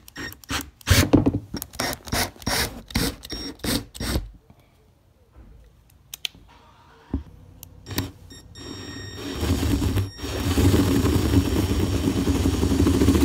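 Power drill with a 15/32-inch bit boring through the plastic deck of a Sea-Doo Spark. A quick string of short bursts in the first four seconds, then after a quiet pause the drill runs steadily for the last four seconds as the bit cuts, with one brief stop.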